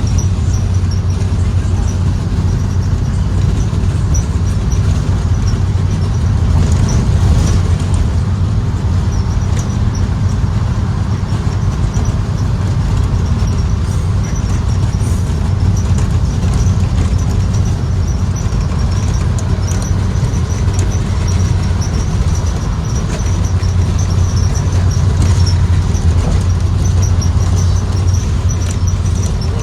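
Steady drone of a 2023 Blue Bird Vision school bus under way, heard from inside the cabin: its Ford 7.3L gasoline V8 running along with road noise, plus a faint, high-pitched squeak repeating throughout.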